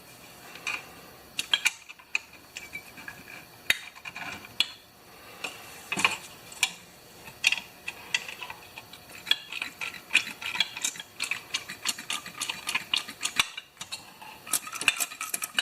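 Honda mower recoil starter (rewind) being worked by hand: irregular metallic clicks and ratcheting from the starter mechanism. Its old rewind spring is dry and sounds rough; the owner says it needs oil.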